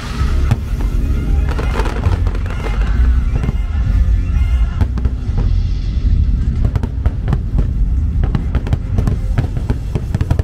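Aerial fireworks going off in quick succession, sharp bangs and crackles that come thickest from about halfway on, over loud show music with a heavy bass.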